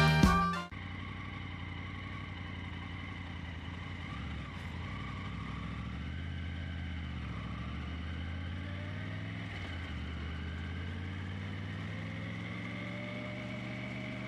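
Motorcycle engine running steadily at low speed. Its pitch rises slowly over the last few seconds as the bike picks up speed.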